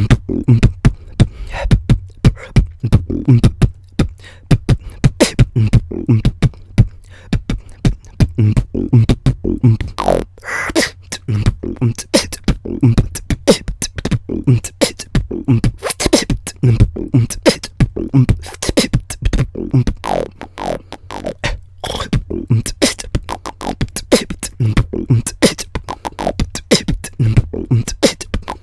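Solo beatboxing into a close microphone: a fast, steady run of mouth-made kick, snare and hi-hat sounds, with deep bass thumps and some pitched vocal effects woven in.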